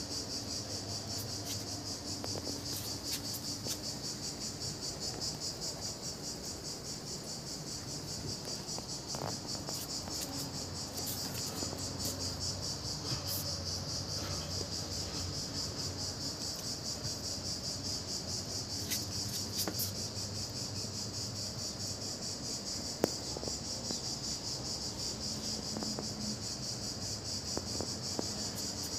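Steady, high-pitched insect chorus with a fast pulsing trill. A few faint clicks and one sharp tap about 23 seconds in.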